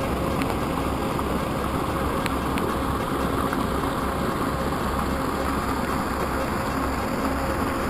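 Muddy stormwater gushing out of a drain outfall pipe and splashing onto a concrete slipway: a steady rushing and splashing. The pipe is running full with runoff from heavy rain.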